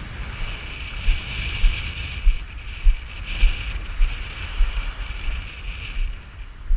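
Wind and water noise buffeting an outdoor camera microphone by the sea, with low thumps about twice a second.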